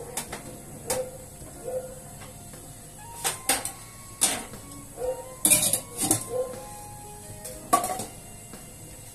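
Kitchen clatter at a gas stove: a dozen or so separate metal clinks and knocks, some with a short ring, as steel pots, tins and the burner grate are handled.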